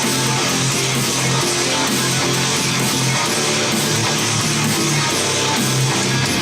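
Guitar-led music played back through Soviet S90E loudspeakers fitted with Alphard midrange and tweeter drivers, recorded by microphone in the room; steady and loud, with no singing.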